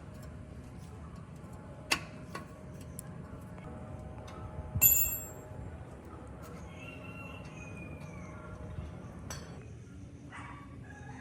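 Metal clicks and clinks over a steady low background hum. The loudest is a single ringing metallic clink about five seconds in, and there are lighter clicks before and after it.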